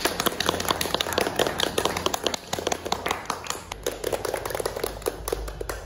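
A small group of people applauding: many quick, separate hand claps overlapping.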